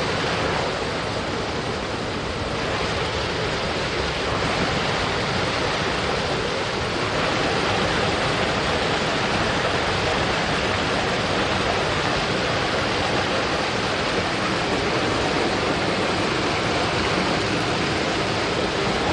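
Mountain stream flowing, a steady, dense rush of water that swells a little a few seconds in.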